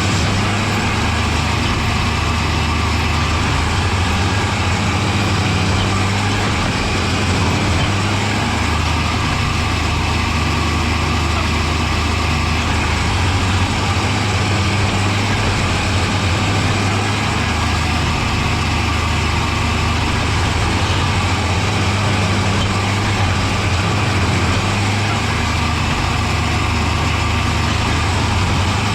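Engine of a railroad maintenance-of-way machine running steadily, with a constant low drone.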